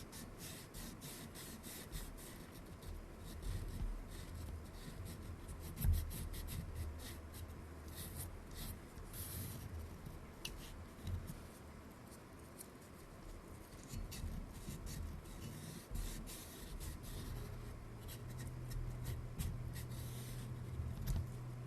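Faint, irregular scratching and rubbing as sticky, degraded light-seal foam residue is scraped and wiped off the metal edge of a Pentax K1000 camera body.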